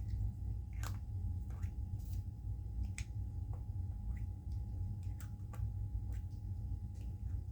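Fingers tapping and handling a small pain-relief balm container: scattered light clicks at irregular intervals, over a steady low hum.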